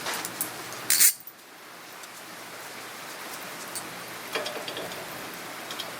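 Tools and bolt hardware being handled at the car's rear hub: a few light clicks and a short, sharp clatter about a second in, then scattered faint clicks over a steady hiss.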